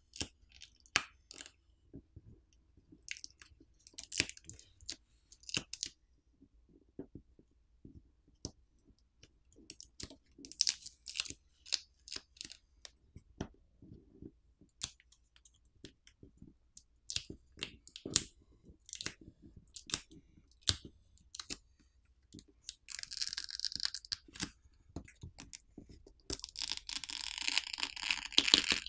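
Smartphone battery's adhesive pull pouch crackling and crinkling under the fingers as it is worked loose, with many small scattered clicks. Near the end come two longer tearing rasps as the adhesive film is peeled away.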